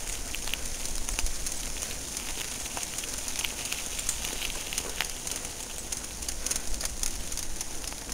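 Bicycle tyres rolling over a gravel path, a steady crackling crunch of many small clicks over a low rumble.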